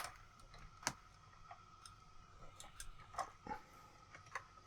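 Scattered light clicks of a die-cast and plastic collectible robot figure being handled, its parts tapping and snapping against each other, with the clearest clicks about a second in and a few more around three seconds in.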